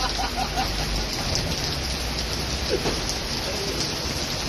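Heavy rain pouring down, a steady hiss of rain on wet surfaces, with a low rumble underneath.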